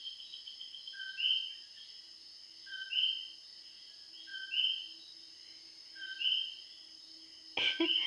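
Puerto Rican coquí frogs calling the two-note "co-quí": a short lower note, then a higher one, repeating about every one and a half seconds. Behind the calls runs a steady high-pitched chorus of night insects.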